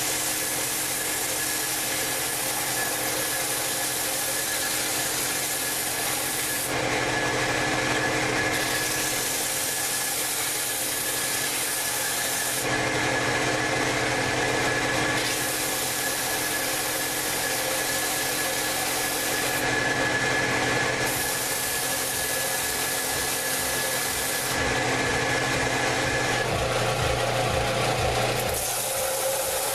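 Electric abrasive power tool running with a steady motor hum while a saw-blade steel knife blade is held lightly against it to clean up the metal. The hiss of grinding comes and goes in stretches of several seconds as the blade is pressed on and eased off.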